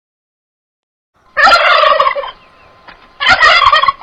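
A turkey gobbling twice, two loud rattling gobbles just under a second each, the first about a second and a half in.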